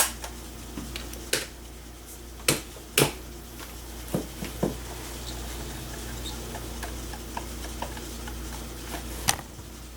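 Scattered sharp clicks and knocks of hands handling a desktop PC, about seven in all, over the steady low hum of the running computer.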